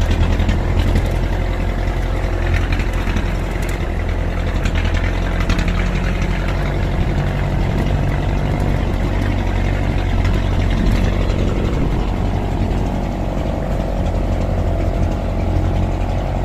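Off-road vehicle's engine running steadily at low revs, with slight slow rises and falls in pitch.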